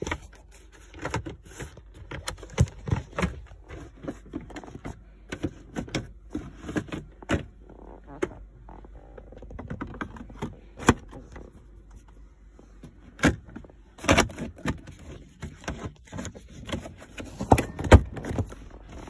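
Irregular plastic clicks, knocks and rustles of a BMW E90 centre armrest and its plastic storage tray insert being handled and fitted, with a few sharper knocks in the second half.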